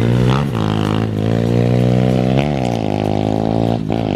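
Small dirt bike engine running at steady revs. Its note dips and picks back up twice, about half a second in and again at about two and a half seconds, as the throttle comes off and goes back on.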